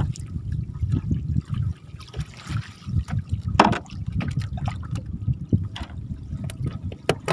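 Choppy lake water lapping and splashing around a small wooden boat and a netted fish cage as fish are lifted from the net by hand, with a low steady rumble and scattered short wet splashes and knocks, the strongest about three and a half seconds in.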